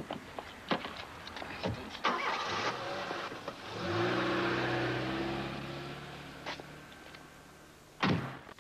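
A car engine being started: a few clicks and a burst of noise, then the engine catches about four seconds in with a slight rise in pitch. It runs with a steady hum that slowly fades, and a sharp knock comes near the end.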